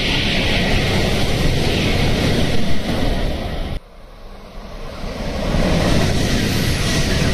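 A white-and-blue Shinkansen bullet train passing through the station at about 300 km/h, a loud steady rush of air and wheels that cuts off abruptly just under four seconds in. The rush then builds again over about two seconds as the yellow Doctor Yellow (923 series) inspection train approaches and passes at about 270 km/h.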